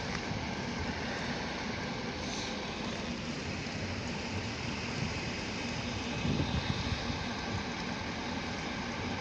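Steady snowstorm wind noise with a low rumble underneath. About six seconds in, a few low thumps come through, like gusts buffeting the microphone.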